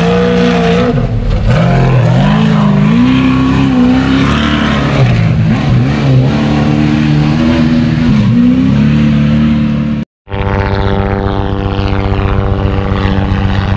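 Off-road race vehicle engine revving up and down, rising and falling in pitch over and over through the gears. About ten seconds in it cuts off suddenly and a steady, even engine drone follows.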